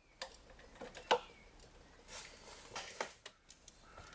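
Scattered clicks, taps and rustling of hands working a car's wiring loom and small hand tools, with one sharp click about a second in.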